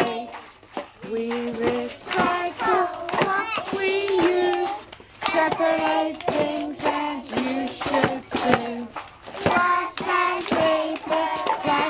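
A group of young children singing together while clapping and shaking and tapping homemade instruments made from recycled bottles, cans, cups and boxes, a steady run of clicks and rattles under the held sung notes.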